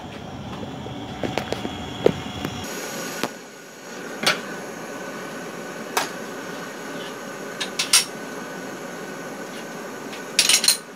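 Rustling handling noise as the phone camera is moved and set down. Then a steady hum with a few sharp knocks and clinks of kitchen items being picked up and put down beside the stove, several close together near the end.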